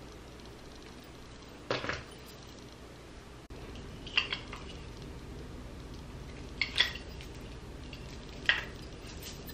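A handful of light clinks and knocks, a couple of seconds apart, of hard objects such as dishes being handled, over a low background hum.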